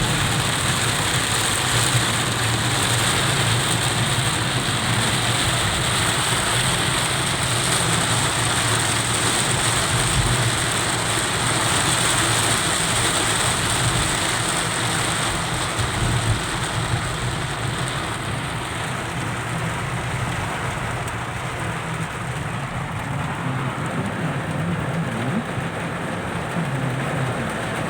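Heavy rain pelting a car, heard from inside the cabin, over the steady hum of the car's idling engine. The higher hiss of the rain thins out about two-thirds of the way through.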